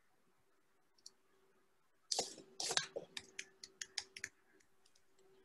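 Computer keyboard being typed on: a couple of heavier clacks about two seconds in, then a quick run of sharp key clicks for just over a second.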